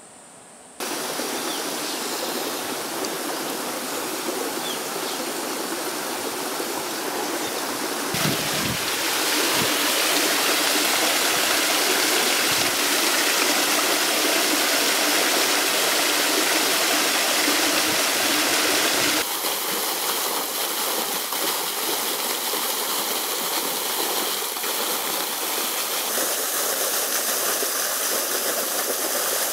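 Water of a small stream spilling over rocks in low cascades: a steady rushing splash. It starts abruptly about a second in, grows louder around eight seconds, and drops slightly around nineteen seconds.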